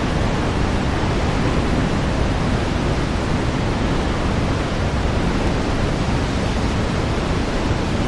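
The Mistaya River rushing through its narrow rock canyon: a loud, steady roar of churning whitewater.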